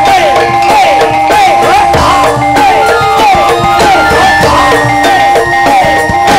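Loud Javanese barongan accompaniment: kendang hand drums beating a busy pattern under a wavering melody full of pitch slides, with a steady high tone held over it.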